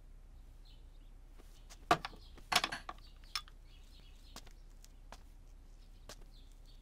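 Quiet ambience with a few short knocks about two to three and a half seconds in, and faint high chirps in the background.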